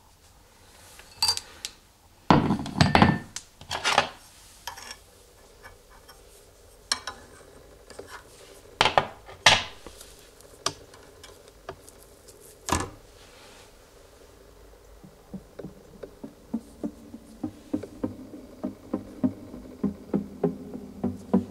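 Sharp metallic clicks, knocks and clinks as the clamp of a friction-test rig is undone and the small steel test pin is taken out by hand, loudest in the first half. From about two-thirds of the way through, background music with a regular beat comes in.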